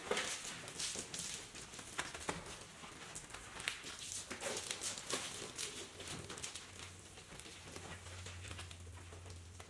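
Soapy microfiber wash pad wiped by hand over a truck's painted body panels: faint, irregular wet swishes and rubbing with small taps.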